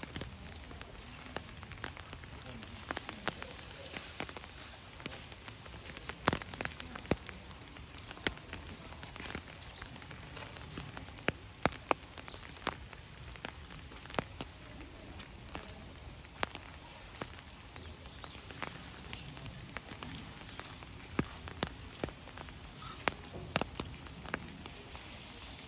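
Steady rain falling, with many sharp, irregular drips landing close by.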